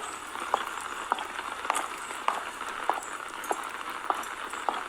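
Steady rain with light taps evenly spaced, a little under two a second.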